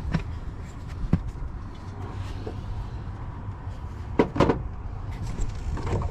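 A few sharp plastic clicks and knocks from a headlight bulb being worked into its headlight housing by hand, the loudest pair about four seconds in, over a steady low rumble.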